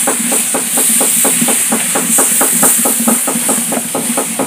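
A cooking spoon stirring quickly in a pot of frying food, knocking against the pot about seven times a second over a steady sizzle.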